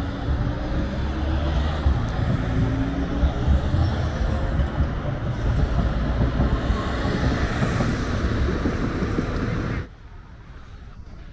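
Busy city street traffic: cars and a tram passing on a wide road, with slow rising motor whines over the steady road noise. Near the end it cuts off suddenly to a much quieter background.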